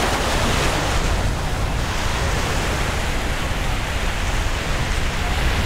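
Steady wash of ocean surf with wind rumbling on the microphone.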